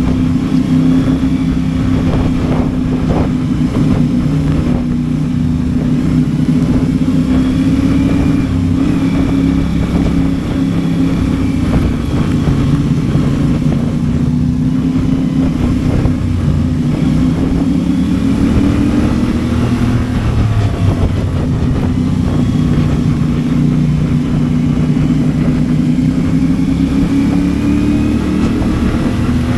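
CFMOTO 450MT motorcycle's parallel-twin engine running steadily while riding, with road and wind noise; its note climbs briefly about two-thirds of the way through.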